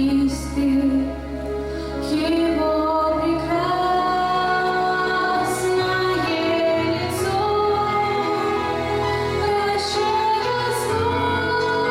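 Women singing a song in Russian, in long held phrases over a steady low instrumental accompaniment.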